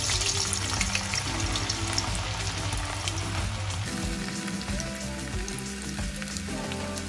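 Potato sticks deep-frying in hot vegetable oil in a wire fry basket, just lowered in: a loud sizzling hiss that eases off after a few seconds.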